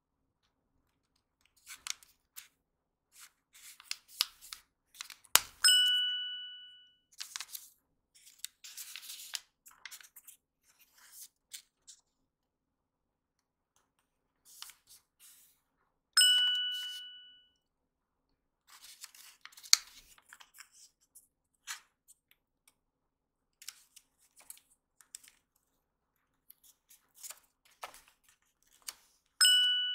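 Origami paper being folded and creased by hand, with short crackles and rustles as it is pressed and turned. A bell-like chime rings three times, each ring fading away over about a second.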